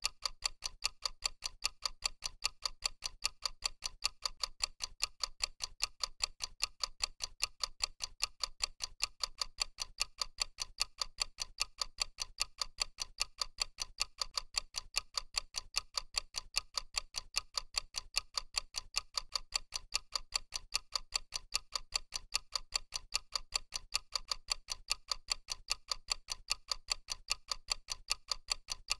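Countdown timer's clock-ticking sound effect: a quick, even tick repeating several times a second without a break.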